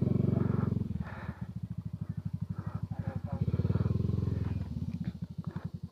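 Motorcycle engine running at low speed, its exhaust pulses rapid and even, swelling slightly near the start and again about four seconds in.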